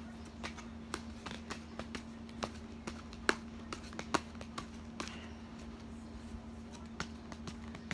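A tarot deck being shuffled by hand, giving soft, irregular clicks and taps several times a second, over a steady low electrical hum.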